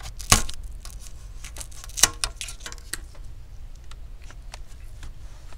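A prying tool clicking and scraping as it is worked between a laptop's screen lid and LCD panel to break the double-sided tape, then the panel being lifted out. Two sharp clicks, about a third of a second in and about two seconds in, stand out among lighter ticks and rustles.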